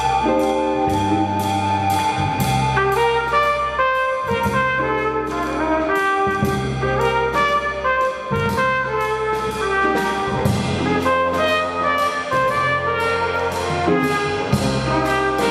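Live jazz band: trumpet and trombone play the tune together with flute, over bass and drums, with an even cymbal beat about twice a second.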